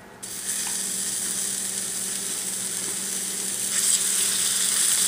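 Raw meatballs sizzling in hot fat as they are set into a cast-iron skillet to brown; the sizzle starts abruptly and grows louder a little under four seconds in.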